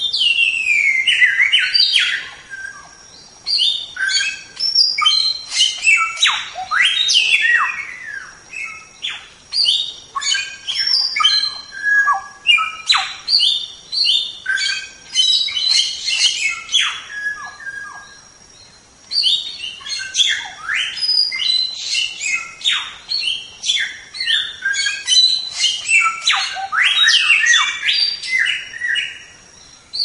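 A samyong songbird singing: a fast, varied run of short chirps and falling whistles, in phrases broken by brief pauses.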